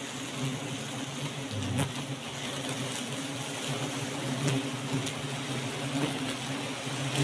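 Giant honey bee (Apis dorsata) colony buzzing close up: a steady, dense hum from the mass of bees covering the comb.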